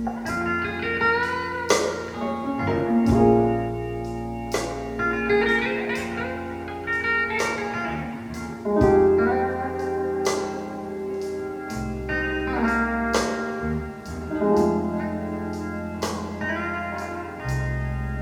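Instrumental blues guitar passage, plucked notes with slides over a held bass line, played back through Bowers & Wilkins 705 Signature bookshelf loudspeakers.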